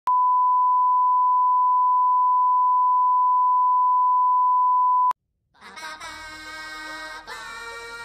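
Steady single-pitch test tone at about 1 kHz, the line-up tone that goes with colour bars. It holds for about five seconds and cuts off with a click. After a brief silence, music with sustained notes fades in.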